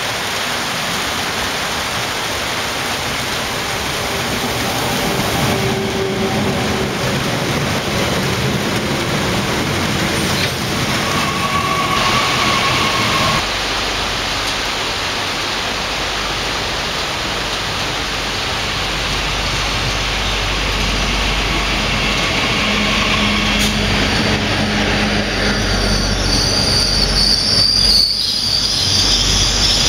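Regional multiple-unit train coming in alongside the platform: a steady running rumble, with a brief whine partway through and a high-pitched wheel squeal over the last few seconds as it passes close by.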